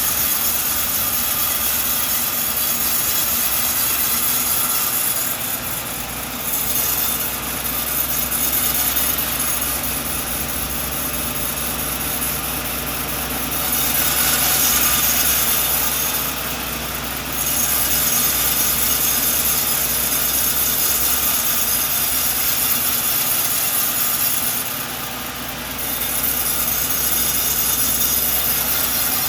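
Sawmill running and sawing through a coconut log: a steady machine drone under the noise of the blade in the wood, easing off briefly a few times.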